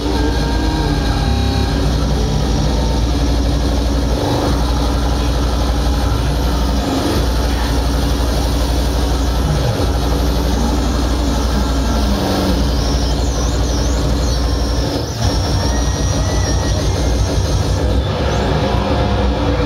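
Live electronic noise music: a dense wall of harsh noise over a steady low drone that cuts out briefly a few times. Squealing tones slide up and down through it, with a warbling high tone partway through.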